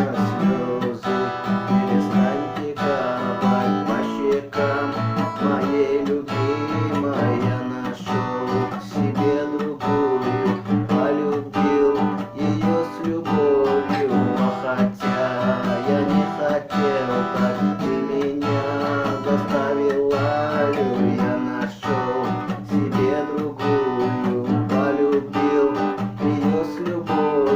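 Instrumental guitar passage with no singing: an acoustic guitar strummed in a steady rhythm, with a melody line above it.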